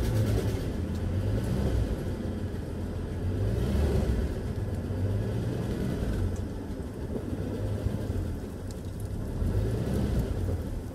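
1974 Ford F-250's 4.9-litre straight-six running just after starting on a newly fitted carburetor, not yet settled to an idle and rising and falling a little in revs. A little tick-tick-tick comes from it, which the owner can't place as lifters or ignition arcing.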